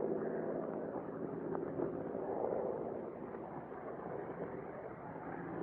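Steady drone of the Bell P-39 Airacobra's Allison V-12 engine in flight, still at full takeoff power in the climb just after the gear is retracted.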